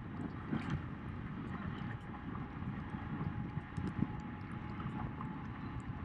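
Steady low rumble and hiss of wind and water around a boat moving along a river, with a faint steady whine.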